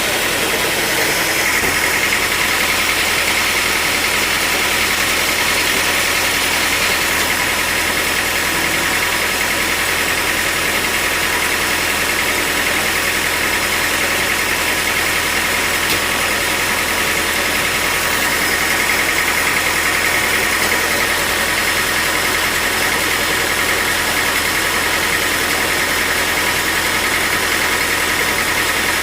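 Sawmill machinery running steadily with a continuous engine-like drone that does not pause or change.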